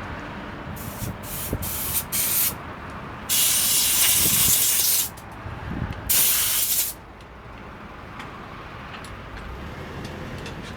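Pressurized spray hissing in bursts: four short squirts, then a long one of about two seconds and a shorter one, as parts of a gas brush cutter are sprayed clean during disassembly.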